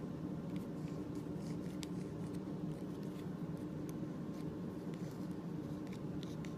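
A steady low hum in the room, with faint scattered ticks and light scrapes from fingers working the clay piece loose from a plate.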